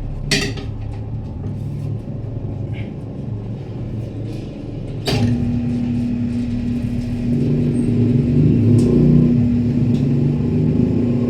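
Low mechanical rumble with a sharp click near the start; about five seconds in, another click and a motor starts, running with a steady hum.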